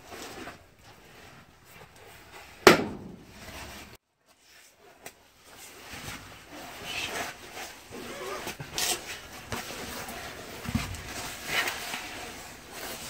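A bolt bursting out of a corrugated steel culvert lining under the pressure of a cave-in: one sharp bang, like a gunshot, about two and a half seconds in, ringing briefly in the steel pipe. Irregular rustling and small knocks follow in the second half.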